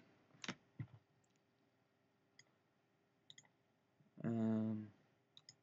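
Faint, scattered computer mouse clicks as settings are selected in the software. About four seconds in comes a short hummed "mm" in a man's voice, held on one pitch.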